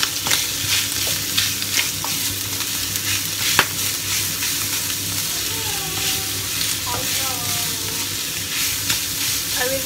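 Minced pork sizzling in a hot wok while a spatula stirs and scrapes it around the pan, with several sharp clicks of the spatula against the wok in the first few seconds.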